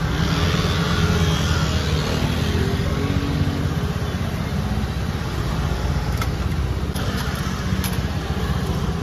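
Steady low rumble of street traffic with a motor scooter engine in it, and a few faint light clicks in the second half.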